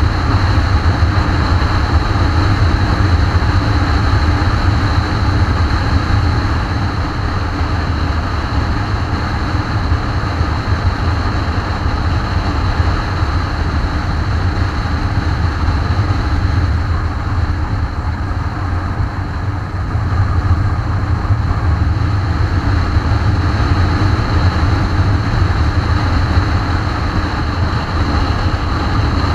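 Motorcycle riding at speed, heard from a camera mounted on the bike: steady wind rush over the microphone mixed with engine and road noise. It eases slightly for a few seconds a little past the middle.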